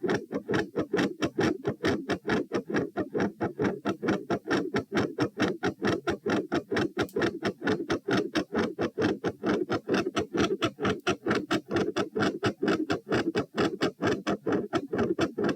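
Human heart sounds picked up at the chest over the pulmonic area, beating fast at about 132 beats a minute as a steady run of quick thuds, several to each beat. The uploader describes the pattern as a third heart sound and a fixed split second sound with a murmur.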